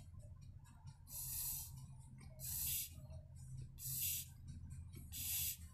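Four short hisses of air as a chainsaw carburetor's check valve is tested by mouth, drawing air through it and blowing through it. The valve closes on suction and opens on blowing: it works correctly.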